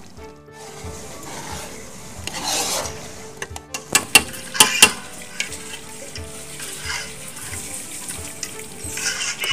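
Metal ladle stirring potato and pea curry in an aluminium pot, with the curry sizzling. A few sharp knocks of the ladle against the pot come about four to five seconds in.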